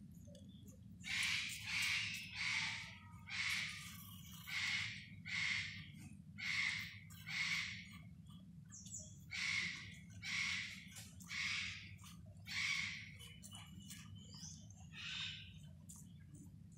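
A chital (spotted deer) fawn sucking milk from a plastic feeding bottle: a run of rhythmic, rasping sucks, about three every two seconds, with a short pause in the middle.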